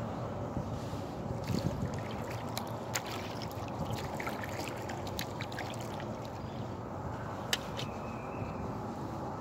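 Water gurgling and trickling around a kayak being paddled, with drips and small splashes from the paddle blades and a few sharp ticks.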